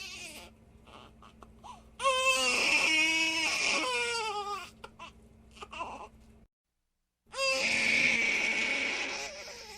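A baby crying: a loud wailing cry about two seconds in, short sobs and catching breaths after it, then a second, rougher cry. A brief gap of total silence falls between the two cries.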